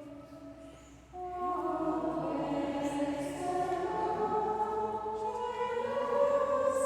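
Choir of nuns singing the responsorial psalm between the Mass readings, a slow chant-like melody of held notes that swells louder about a second in.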